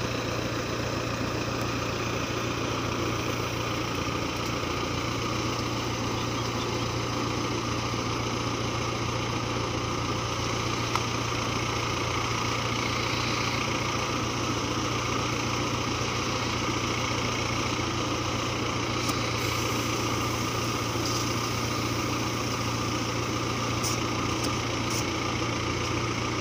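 Crown MCH PJ-2000 Star combine harvester running steadily in place, a continuous engine hum with no change in speed.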